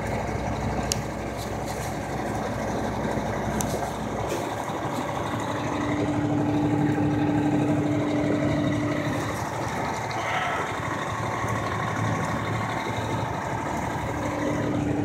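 A truck's engine running, heard from inside the cab while driving through floodwater in rain, over a steady rushing noise. A steady engine hum comes in about five seconds in, fades about four seconds later and returns near the end.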